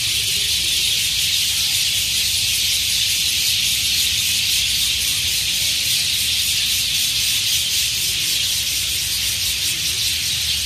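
Dense, steady chorus of a large flock of birds chattering together in the treetops as they gather to roost at dusk, with a low rumble underneath.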